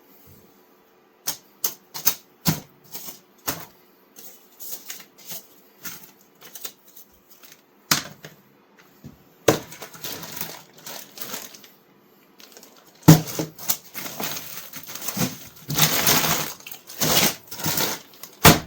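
Irregular sharp clicks and clatters of small hard objects being handled and knocked together, sparse at first, then denser and louder over the last few seconds.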